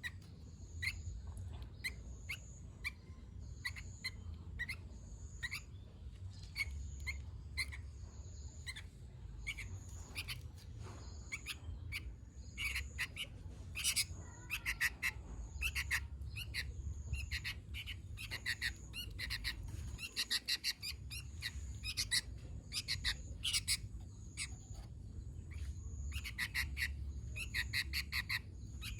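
Sooty-headed bulbul (kutilang) singing actively in quick bursts of short, bright notes, with denser runs of rapid notes around the middle and near the end. Under it, a thin high note repeats evenly about every second and a half, over a low steady rumble.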